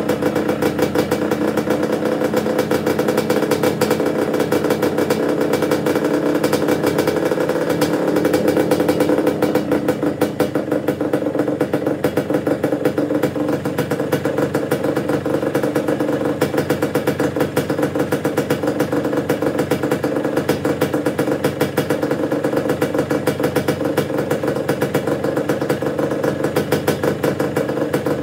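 Yamaha DT125's single-cylinder two-stroke engine running steadily at idle on a stand, picking up slightly about eight seconds in. The owner says something is wrong with the engine.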